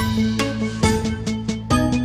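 Background music with a steady beat and a bass line, the beat and bass coming in right at the start.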